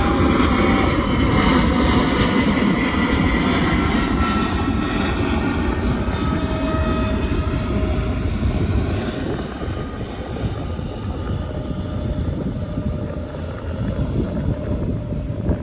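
An airplane passing low overhead, its engine tones gliding down in pitch as it goes by and fading after about ten seconds, over wind rumbling on the microphone.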